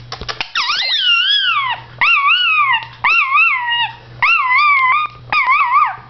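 Blue Indian ringneck parakeet giving five drawn-out, wavering whistled calls, each under a second with short gaps between them, after a few quick clicks at the start.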